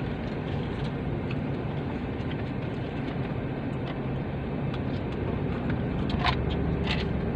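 Steady low hum of a car engine idling, heard from inside the car's cabin, with a few light clicks about six and seven seconds in.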